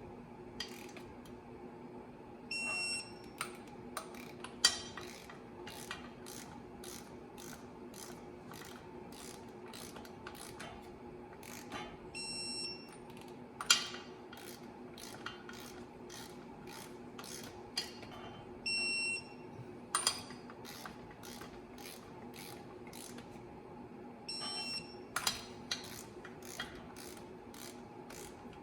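Torque wrench ratcheting in short runs of clicks as flywheel-to-crankshaft bolts are drawn down, with an electronic beep four times, each under a second long, as the wrench reaches its 25 ft-lb setting. A faint steady hum lies underneath.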